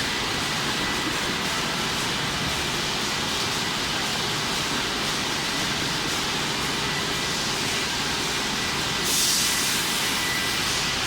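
Steady noise of factory machinery with a faint thin whine running through it. About nine seconds in, a sharper hiss of air or spray joins for a couple of seconds.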